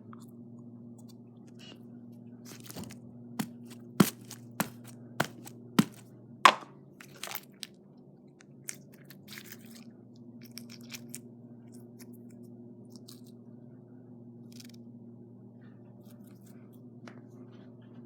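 Red glitter slime being squeezed and stretched by hand, giving a series of sharp pops and clicks, loudest in the first seven seconds and sparse after that.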